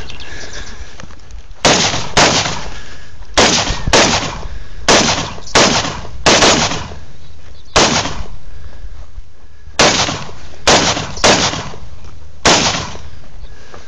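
Scoped rifle fired about a dozen times at an uneven pace, the shots coming from half a second to two seconds apart. The first shot comes about a second and a half in.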